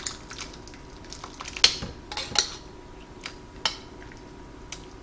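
Metal spoon scraping and clinking against a stainless steel saucepan and bowl as soup is spooned from the tilted pan into the bowl: scattered light clicks, the sharpest about one and a half and two and a half seconds in.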